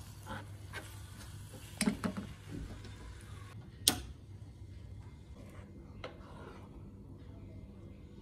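A spatula stirring thick oatmeal in a pan and knocking against it: a few knocks about two seconds in, one sharp tap about four seconds in and a lighter one near six seconds, over a low steady hum.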